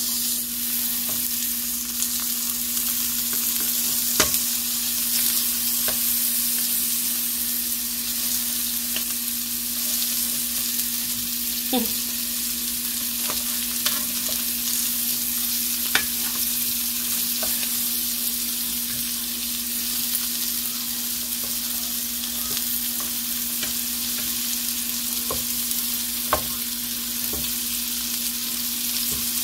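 Lamb chops sizzling as they fry in butter in a pan, a steady hiss, with several sharp clicks of metal tongs against the chops and pan as they are turned.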